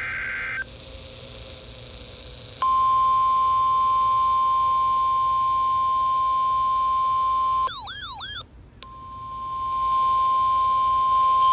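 NOAA Weather Radio alert broadcast: the tail of a SAME digital header burst, a two-second pause with faint hiss, then the steady single-pitch 1050 Hz warning alarm tone. The tone is broken for about a second near eight seconds in by warbling, wavering tones, then returns and grows louder.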